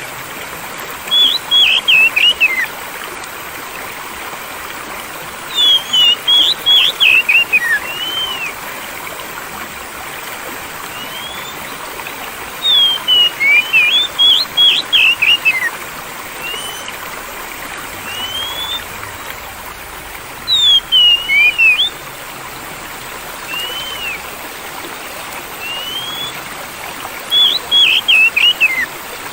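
Oriental magpie-robin (kacer) song: five short bursts of rapid whistled phrases, with single slurred whistles between them, over steady flowing water.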